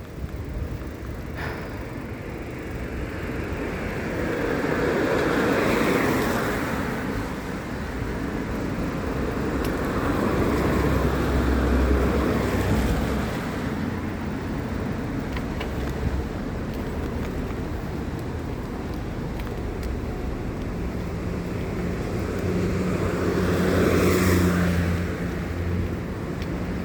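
Road traffic going by: vehicles pass in swells about six, twelve and twenty-four seconds in over a steady wash of road noise. A low, steady engine hum joins in the last few seconds.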